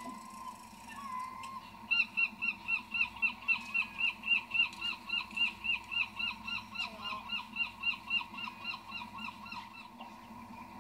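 A bird calling in a rapid series of short, hooked notes, about four a second, starting about two seconds in and stopping near the end. A steady hum runs underneath.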